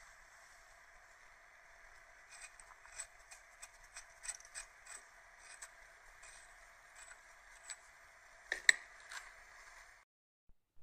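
Light metallic clicks and scrapes of hand-tool work on metal, over a steady hiss, with one louder clank near the end; the sound cuts off abruptly.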